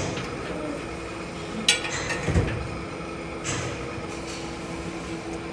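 Cage mill running empty, its two counter-rotating rotors giving a steady hum with a held tone, the noise coming mostly from air churned between the rotors. Near two seconds in, a sharp metallic clink, then a low thump.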